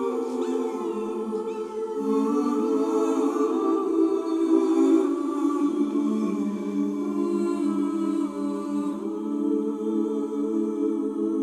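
A choir singing a cappella: slow, long held chords that move to a new chord every few seconds.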